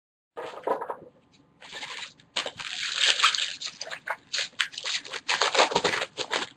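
Crinkling and crackling of trading-card pack wrappers and cellophane being handled and torn, starting about half a second in and growing busier after a couple of seconds.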